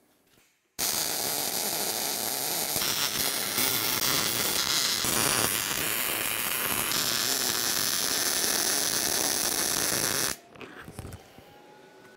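Electric arc welding a butt joint between two thick pieces of steel round bar clamped in a vise: a steady hissing, buzzing arc that starts about a second in, runs for about nine and a half seconds and cuts off suddenly.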